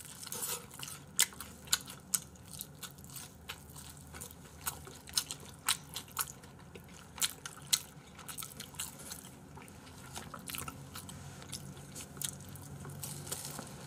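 Chewing and biting into Kyochon Red boneless fried chicken: a run of irregular crunchy clicks and mouth sounds.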